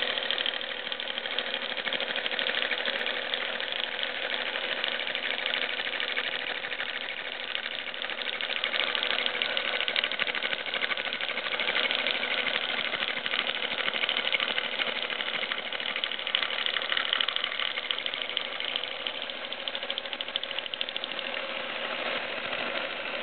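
Carbide-insert face mill on a Stanko vertical milling machine cutting Hardox 450 wear-resistant steel: a steady, dense rattling of the inserts biting the hard steel and throwing chips, with a steady whine underneath.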